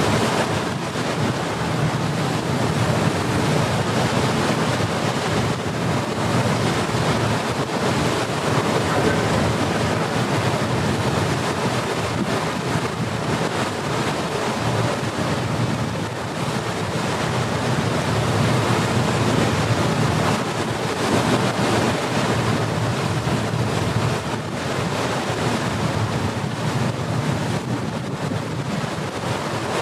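Steady wind buffeting the microphone over the rush of sea water, heard from the deck of a moving ferry.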